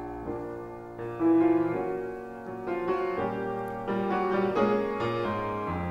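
Solo piano accompaniment playing a slow fill of chords and melody notes between vocal phrases, with a louder chord about a second in.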